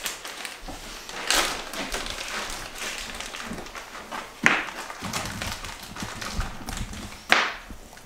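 Plastic bag crinkling and rustling as raw goose meat is worked out of it by hand, with two sharp clicks, one about halfway through and one near the end.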